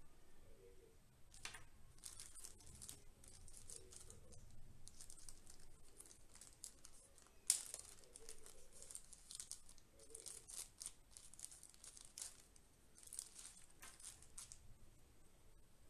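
Faint crinkling of small clear plastic zip-lock bags being handled, in irregular bursts, with one sharp click about halfway through.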